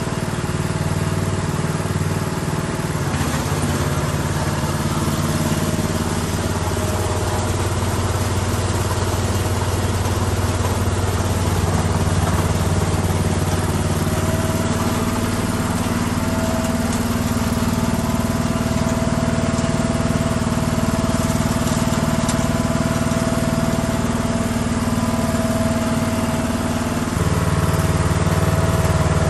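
Small engine of a tracked walk-behind snowblower running steadily, its note changing about three seconds in and again near the end as the control levers are worked.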